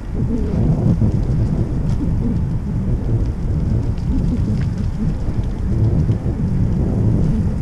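Wind buffeting the microphone of a camera on a moving bicycle: a loud, steady, low rumble, with a few faint ticks.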